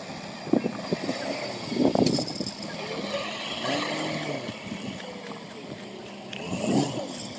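Engine of a small tracked carrier loaded with rice sacks, running steadily as the machine drives off and grows fainter, with a few knocks and faint voices.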